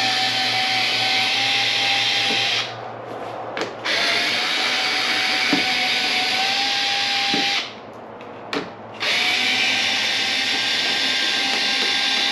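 Cordless screw gun running in three long stretches as it backs out the screws under a car's front bumper. It stops briefly about three seconds in and again about eight seconds in, and its steady whine rises slightly in pitch partway through the middle stretch.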